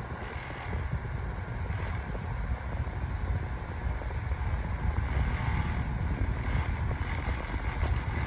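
Holmes Blizzard oscillating table fan running on low speed, a steady, noisy whirr with a fluttering low rumble from its breeze buffeting the microphone. It sounds awful, so noisy that the owner calls it a terrible fan.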